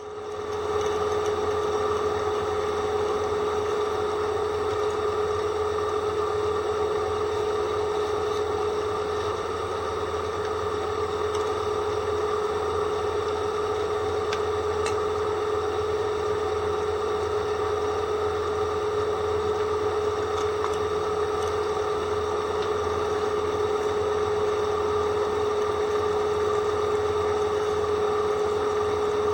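Electric drill running with a dull bit that whistles, a steady high tone over a low motor hum. The sound dips for an instant at the start, then holds steady.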